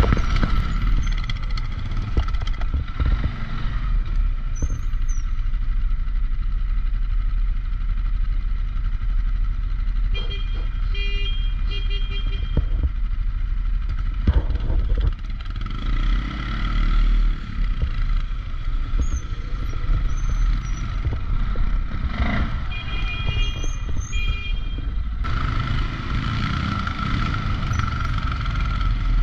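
CFMOTO CFORCE 625 ATV's single-cylinder engine running steadily under way on a dirt trail, with a low rumble throughout.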